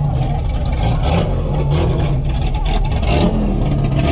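A modified off-road jeep's engine running under throttle as the jeep drives past close by through mud.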